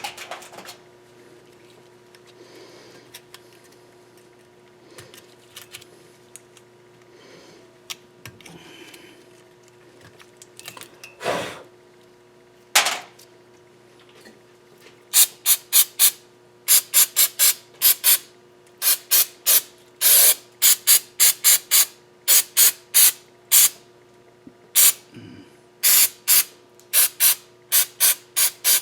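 Hand scraping and scrubbing strokes on the engine's deck surface as it is cleaned. The first half holds only sporadic light rubbing; from about fifteen seconds in comes a quick run of short, sharp scrapes, two or three a second. A faint steady hum sits underneath.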